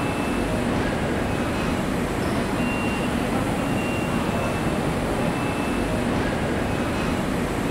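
Steady railway-station background noise, a continuous low rumble of trains and traffic, with faint brief high tones now and then.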